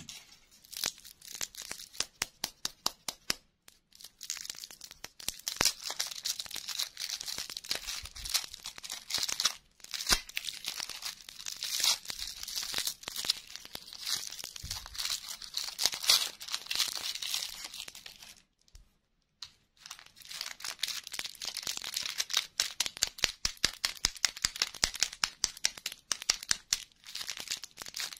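Plastic candy wrappers crinkling and tearing as they are unwrapped by hand: a lollipop's plastic wrapper and a small candy packet. Quick sharp clicks come first, and the crackling stops briefly about two-thirds of the way through.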